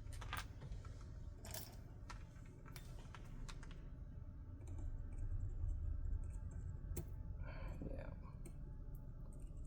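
Scattered light clicks and taps of small parts being handled and pried at while a soldering iron is opened up for repair, over a low steady hum.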